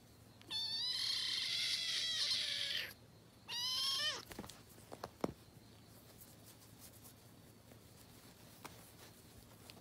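A small kitten meowing twice, high-pitched: a long cry about half a second in, then a shorter one that falls in pitch. A few faint clicks follow.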